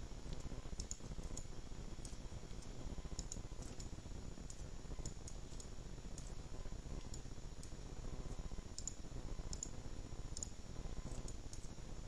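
Computer mouse button clicking: single sharp clicks at irregular intervals, about a dozen in all, as edges are picked one by one. A low steady hum runs underneath.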